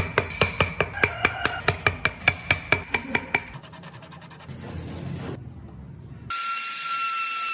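Woodworking tool sounds cut together: rapid sharp strikes, about four a second with a slight ring, for the first three seconds or so, then a rough rasping noise, then a power tool starts with a steady high whine about six seconds in.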